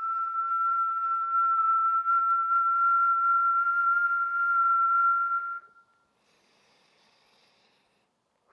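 A woman's long, slow exhale through pursed lips, making a steady whistling tone over breath noise. The exhale stops about six seconds in and is followed by a faint inhale through the nose.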